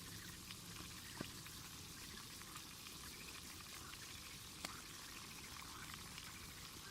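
Faint steady hiss with a few sharp crackles or pops.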